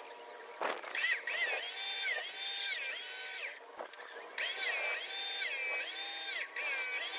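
Background electronic music: a buzzy synth figure that rises, holds and falls in a repeating pattern, with a short break just before the middle.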